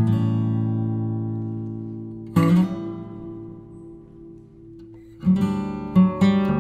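Background music: acoustic guitar chords struck and left to ring, one at the start and another about two and a half seconds in, then quicker strumming from about five seconds in.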